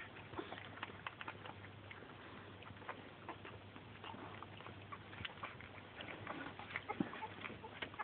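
Two-week-old pitbull puppies squirming in a pile, making faint scattered clicks and rustles, with a few tiny squeaks about seven seconds in.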